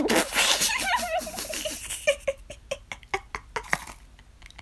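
A person laughing: high-pitched giggling that breaks into a run of short, breathy bursts of laughter and fades towards the end.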